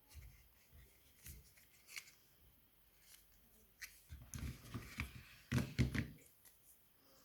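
Hands handling the iPhone's Lightning-to-USB cable and its wrapping: light scattered clicks, then a stretch of rustling and crinkling with soft knocks from about four to six seconds in.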